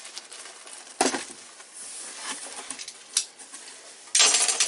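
Cardboard shipping box being opened and rummaged through: a sharp knock about a second in, a click a couple of seconds later, then loud rustling of packing material near the end.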